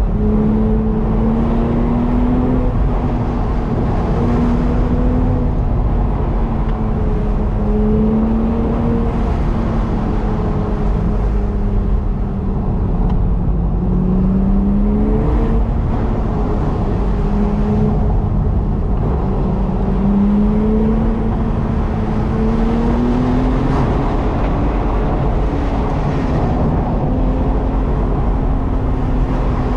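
Car engine and tyre-road noise heard from inside the cabin while driving, the engine note rising and falling several times as the car speeds up and eases off along the curves.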